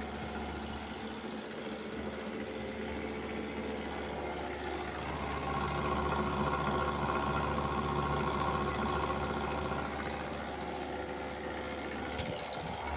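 Hitachi window air conditioner running with a steady compressor and fan hum, its refrigerant gas charge just completed. A whining tone rises over the hum about five seconds in and eases off again about ten seconds in.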